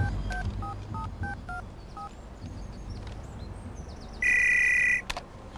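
Mobile phone keypad tones as a number is dialled: about seven short two-tone DTMF beeps in quick succession. About four seconds in, a phone gives one loud electronic ring lasting under a second.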